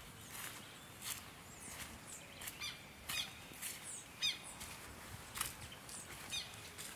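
Small birds chirping faintly, with short high chirps and quick falling notes repeated at irregular intervals.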